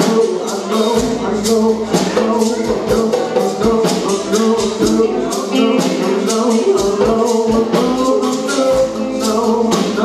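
Live band playing an R&B number: electric guitars, bass and drums, with steady high cymbal strokes keeping the beat.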